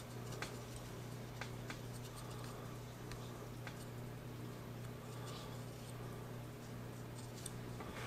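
Soldering on a small circuit board: faint, scattered ticks and light crackles over a steady low hum.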